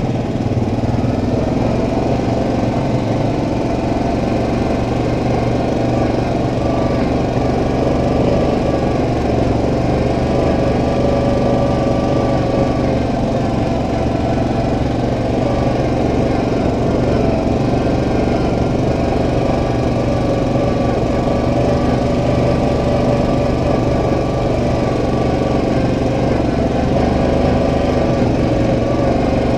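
Yamaha Kodiak 700 ATV engine running steadily at an even cruising speed along a dirt trail, heard up close from the rider's seat. Its pitch stays almost level, with only slight wavering.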